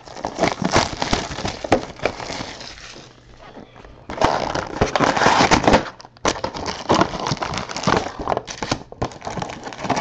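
Plastic wrapping crinkling and tearing, with sharp crackles, as a box of trading-card packs is opened. The loudest stretch of crinkling comes about four to six seconds in.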